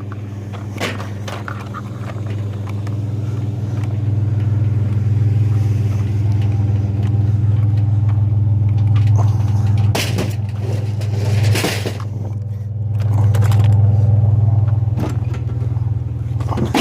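Vehicle engine running with a steady low hum that swells louder a couple of times, with a few short knocks and clatters.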